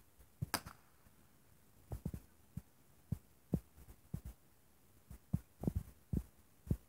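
A small ground firework going off on pavement, giving irregular sharp pops and crackles, a few a second at times, with one louder crack about half a second in.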